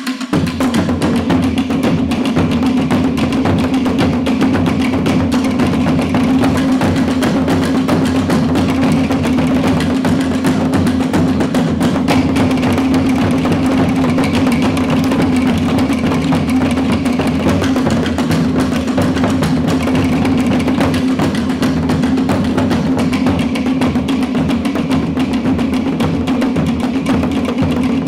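Tahitian drum ensemble playing a fast, dense rhythm: to'ere slit-log drums struck with sticks in rapid, clattering strokes over the deeper beat of pahu drums. The full ensemble comes in loudly right at the start and keeps a steady, unbroken drive.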